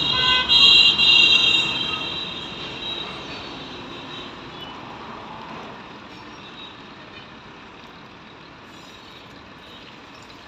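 Passing vehicle with a high, steady squeal or horn that fades away over the first few seconds, leaving steady traffic noise.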